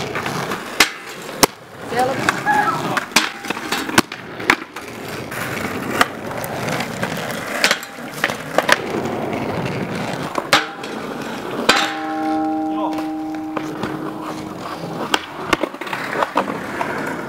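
Inline skate wheels rolling on asphalt, with repeated sharp clacks as skates hit and grind a low steel ground rail. About two-thirds of the way through, a hit sets the rail ringing for a few seconds.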